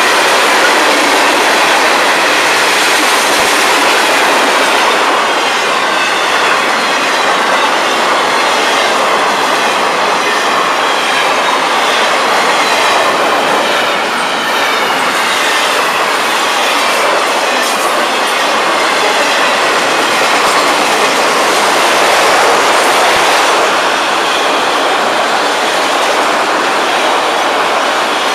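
Freight train cars rolling steadily past at close range: a loud, even rumble of steel wheels on the rails as hopper, double-stack container and autorack cars go by.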